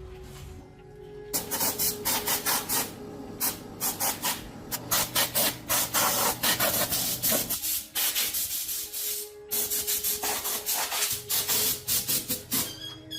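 Hand scraping or sanding on a part: rapid rough strokes, roughly three to four a second, in two runs with a short pause in between.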